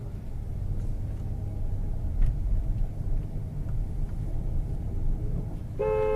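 A vehicle driving, with a steady low rumble of engine and road noise. Near the end a car horn starts sounding, one steady held blast.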